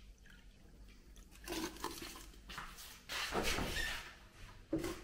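Faint, irregular kitchen handling noises: things are moved and set down and a refrigerator door is opened, with a sharper knock near the end.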